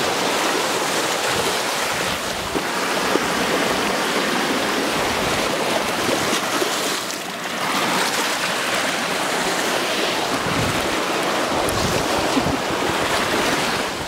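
Small Baltic Sea waves washing over stones and shingle at the water's edge, a steady hiss of moving water.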